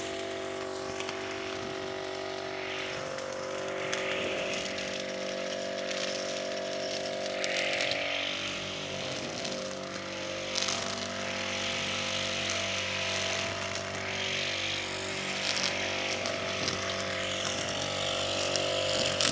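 Petrol brush cutter with a nylon-line head running at steady high throttle, with a hiss of cutting swelling up about every three or four seconds as the line swings through grass and brush.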